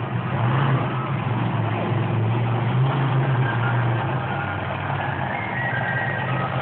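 Ice Cream Man monster truck's supercharged V8 engine running loud and steady as the truck drives across the arena's dirt floor, a constant low engine note throughout.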